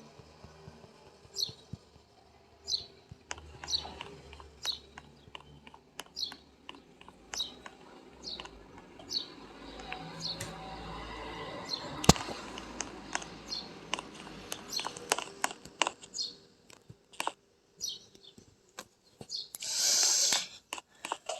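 A small bird chirping over and over, short high falling notes about once every second or so, among scattered household clicks and knocks. One sharp knock stands out about halfway through, and a short hiss comes near the end.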